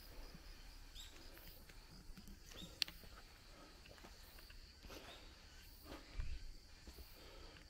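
Footsteps of someone walking on a woodland path, about one a second, with a sharp click about three seconds in and a heavier low thump about six seconds in, over a steady high insect trill.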